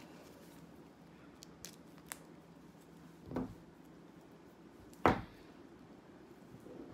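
Faint handling of game cards and a cardboard game box: a few light clicks, then two short soft knocks about three and five seconds in.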